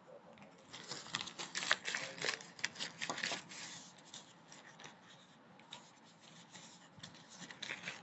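Paper wrapping being crumpled and pulled open by hand, a dense crinkling and crackling over the first few seconds, then thinner rustles and a few crinkles near the end.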